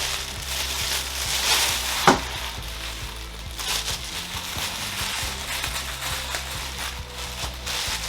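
Plastic packaging and wrap rustling and crinkling as it is handled, with one sharp snap about two seconds in.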